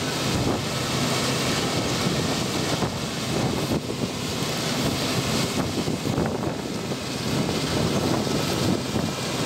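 Laverda M310 MCS combine harvester running steadily under load while harvesting barley, its engine and threshing machinery making an even, continuous noise.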